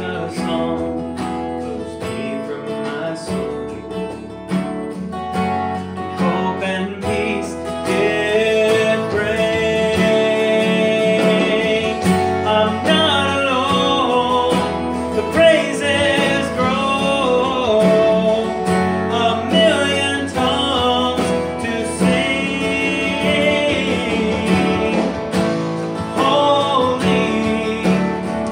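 A man singing to his own acoustic guitar, the singing growing louder and fuller about eight seconds in.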